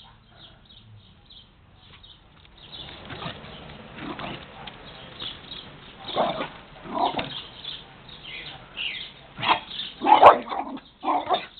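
Small terrier barking and yipping in short, sharp bursts, fainter at first and growing louder in the second half, with the loudest barks about ten seconds in.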